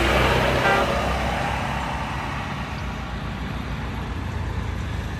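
A motor vehicle driving past on the road: engine and tyre noise, loudest in the first second as it passes and fading away over the next few seconds.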